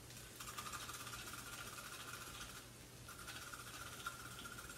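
Celery stalk being shredded by a hand-cranked rotary cone shredder, a faint rasping in two runs with a short break about two and a half seconds in.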